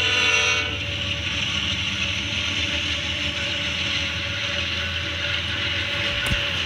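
Locomotive air horn sounding a chord, cutting off about half a second in, followed by a steady low rumble and hiss from the approaching train.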